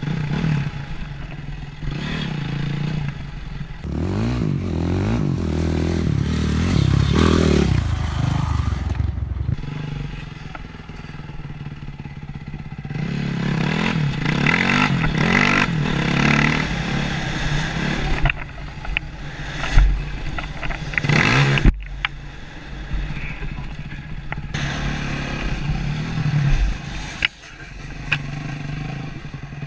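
Honda CRF450R four-stroke dirt bike engine heard from the rider's helmet, revving up hard twice as it accelerates over rough dirt. A few sharp knocks come about two-thirds of the way through.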